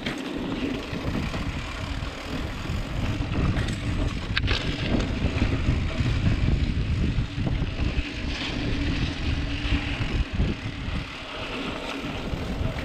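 A mountain bike rolling down a dirt trail: a steady rumble of knobby tyres on the dirt and the rattle of the bike, with wind rushing over the microphone. A single sharp knock about four and a half seconds in.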